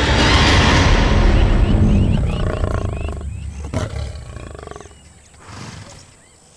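A large wild animal's loud, rough roar, fading away over the first few seconds, with faint high chirps as it dies down.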